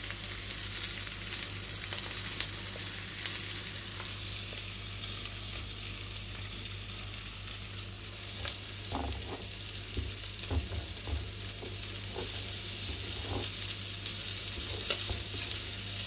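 Flour-coated fish frying in hot oil in a pan: a steady sizzle with fine crackling. A few soft knocks come in the middle.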